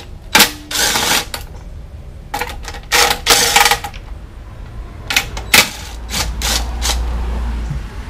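Cordless impact driver hammering in a series of short bursts, some brief and some about half a second long, backing out the bolts that hold a lawn mower's gas tank.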